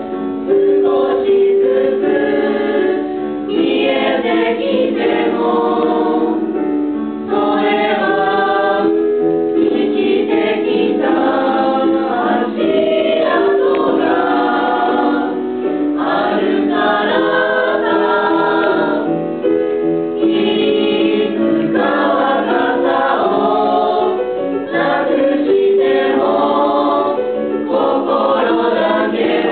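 A mixed group of young men and women singing a song together as a small choir.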